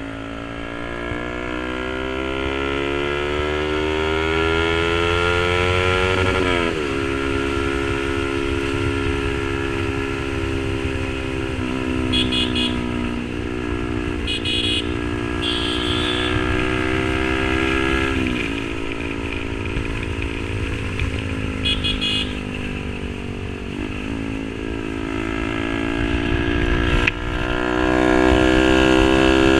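A Yamaha R15 V3's single-cylinder engine breathing through an SC Project aftermarket exhaust, accelerating under way. Its note climbs slowly and drops sharply at each of three upshifts. A few short horn toots sound in the middle.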